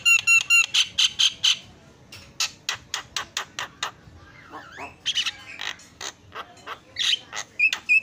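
Javan myna calling loudly and continuously: fast runs of short, repeated sharp notes, about five a second, with a looser jumble of varied calls in the middle.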